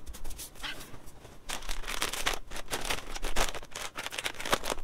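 Crinkling of plastic snack bags as they are picked up and handled, in a run of irregular rustles that grows busier about a second and a half in.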